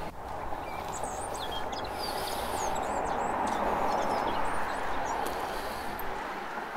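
A vehicle passing on a road, a rush of tyre noise that swells to a peak midway and fades again, with small birds chirping.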